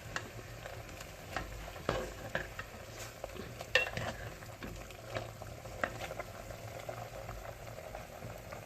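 Food sizzling in a cooking pot while a utensil stirs it, with irregular scrapes and knocks against the pot as it is dried off over the heat.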